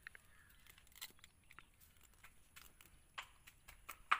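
Small cracks and clicks of a crab's shell and legs being broken apart by hand while it is cleaned, irregular and scattered, with a sharper snap near the end.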